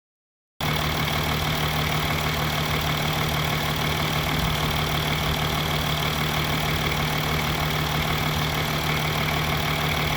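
Mercedes-Benz S350d diesel engine idling steadily, starting abruptly about half a second in.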